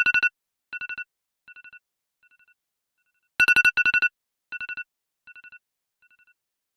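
Electronic phone ringtone: a quick run of bright two-pitch beeps followed by three fainter repeats that fade away like an echo, the whole figure playing twice.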